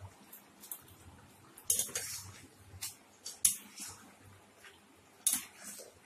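A cooking utensil scraping and knocking against a pot of chicken several times, with the strokes coming irregularly between short pauses.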